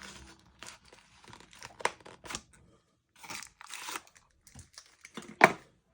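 Packaging being opened by hand: short bursts of tearing and crinkling with scattered clicks, and one sharp loud snap about five and a half seconds in.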